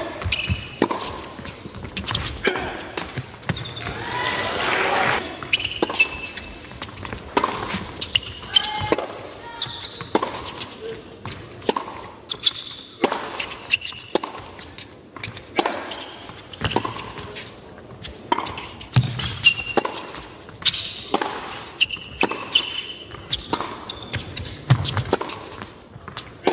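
Tennis rallies on an indoor hard court: rackets striking the ball and the ball bouncing, in a steady back-and-forth of sharp hits, with short high squeaks of shoes on the court between them.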